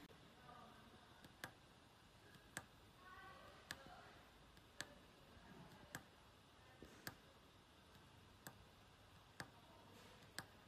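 Faint sharp clicks, about one a second and not quite evenly spaced, over near silence.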